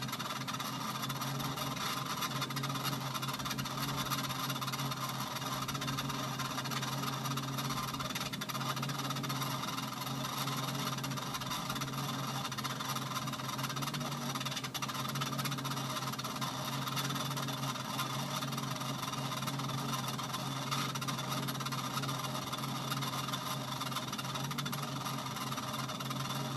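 Treadmill running with a steady whining, squealing noise over a low hum that swells and fades every few seconds. The owner puts the noise down to the running belt having become very tight and crooked.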